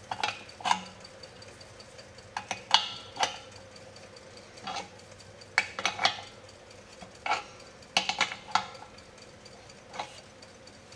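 A wrench on the hex nut of a pressure gauge, clinking and scraping in irregular sharp metallic taps as the gauge is screwed into the air compressor's fitting.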